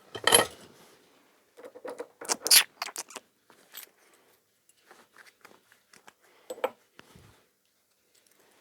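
Small steel gearbox parts of a moped engine clinking and knocking as they are handled and set down: a few separate clatters, loudest just after the start and about two and a half seconds in, with a smaller knock near the end.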